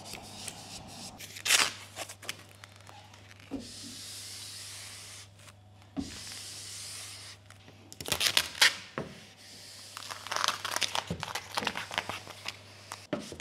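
Vinyl wrap film being handled and applied by hand: a squeegee rubs across the film in smooth strokes, and in the second half the backing liner is peeled off in crackling, tearing bursts.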